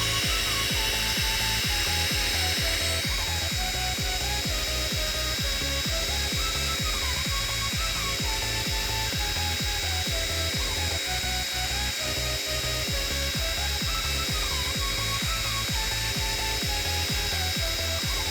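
Atomstack X20 Pro quad-diode laser engraver running a cut through MDF: its motors drive the head with a rapid, even pulsing and a steady high whine, under background music with a melody.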